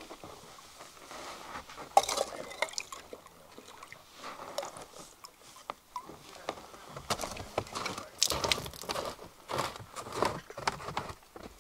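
Irregular handling noises: a string of crunches, clinks and rustles, with one sharp knock about two seconds in and a denser, louder run in the second half.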